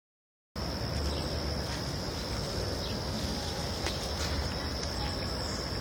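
Insects singing in a steady, high-pitched drone over a low background rumble, starting about half a second in.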